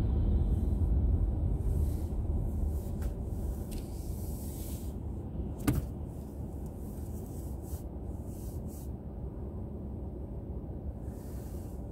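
Low rumble of a car's engine and tyres heard from inside the cabin, growing quieter, with one sharp click just before the middle and a few faint ticks.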